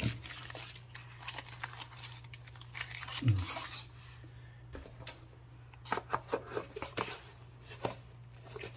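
Handling noise from a small plastic gadget and its packaging being put away: scattered light clicks and rustling, with a louder knock about three seconds in and a quick run of clicks near the middle-end.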